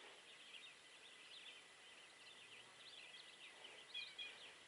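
Faint songbirds chirping and singing, many short high chirps overlapping throughout, over a thin steady high tone.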